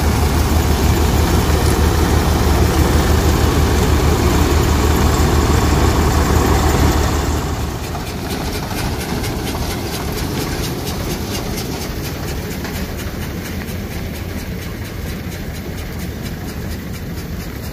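Swaraj 735 FE tractor's three-cylinder diesel engine running steadily with a dense low hum, hitched to a threshing machine. About seven seconds in, the sound drops to a quieter tractor engine note with an even pulse.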